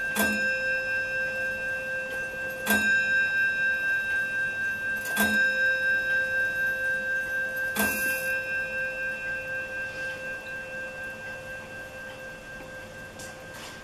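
Astronomical skeleton clock's strike train hammering its bell four times, about two and a half seconds apart. Each blow rings on with a wavering hum, and the ringing fades away after the last strike. A faint click of the strike mechanism comes near the end.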